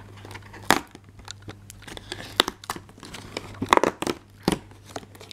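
Fingers prying and tearing open a tight perforated cardboard door on an advent calendar: irregular scratching and crinkling of card, with several sharp snaps as it gives way.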